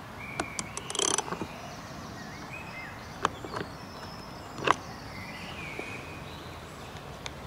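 Socket ratchet clicking in a quick run as a robotic mower's wheel nut is tightened, followed by a few single knocks. Short bird chirps come through over a steady outdoor background.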